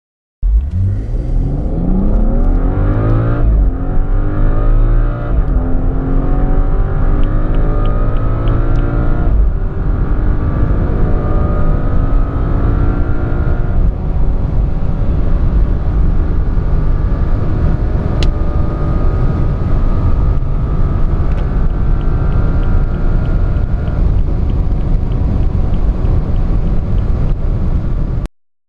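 Car engine under full-throttle acceleration from a standstill to high Autobahn speed. The revs climb and drop at each of about five upshifts over steady road and wind noise, then the sound cuts off abruptly near the end.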